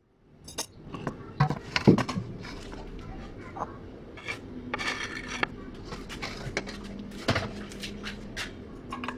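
Dishes and metal utensils clinking and knocking as they are handled, a string of short sharp clinks, the loudest about two seconds in.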